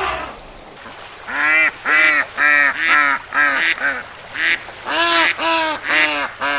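Domestic waterfowl calling: a series of about a dozen short, quick calls in two runs, with a brief pause between them.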